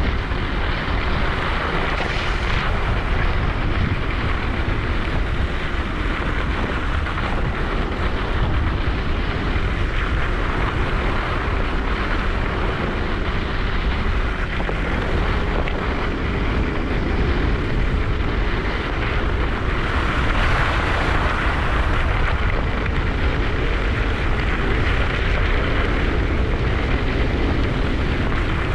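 Wind rushing over the microphone and skis hissing over the snow during a ski descent: a steady, loud rush with a heavy low rumble and no breaks.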